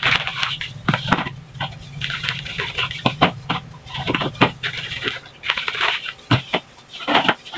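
Plastic graham cracker packet crinkling and rustling in irregular bursts as crackers are pulled out by a gloved hand, with light taps of crackers set into a plastic container.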